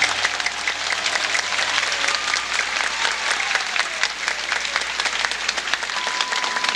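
Audience applauding, a dense crowd of hand claps that starts just as a song ends.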